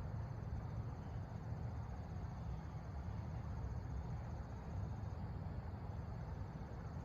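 Steady low background rumble with a faint, high, rapidly pulsing trill over it, which breaks off briefly near the end.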